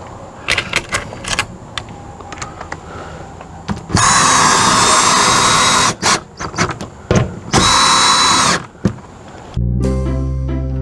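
Power drill driving lag bolts into an RV awning arm mount: two runs, about two seconds and then about one second long, with clanks and knocks from handling the bolts between them. Background music comes in near the end.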